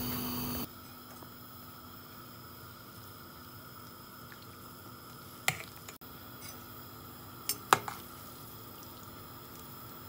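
Quiet kitchen background with a steady faint hum, broken by a few sharp clicks: one about halfway through and two close together about three quarters in.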